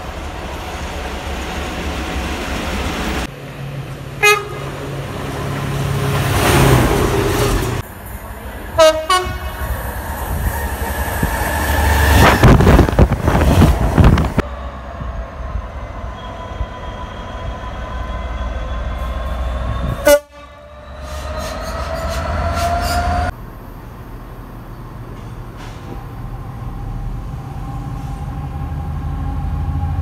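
Diesel locomotives passing through stations, sounding several short horn blasts among the rumble of their engines and wheels. A train passes loudly near the middle, and the sound changes abruptly several times between separate trains.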